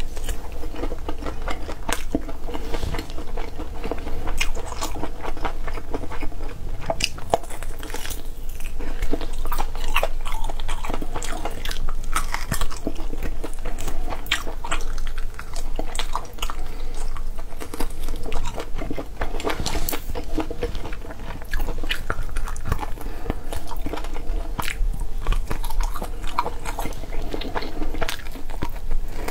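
Close-miked eating sounds: a person biting into and chewing pieces of braised meat held in the fingers, with many short clicks and smacks of the mouth.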